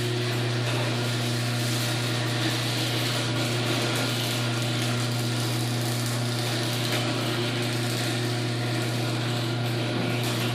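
LiftMaster 8165 chain-drive garage door opener running a door: a steady, loud motor hum with chain and rail noise.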